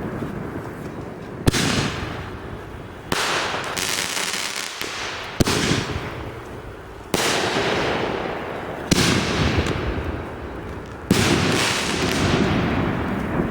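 Fireworks going off in a steady series: six sharp bangs about every one and a half to two seconds, each followed by a hiss that fades out.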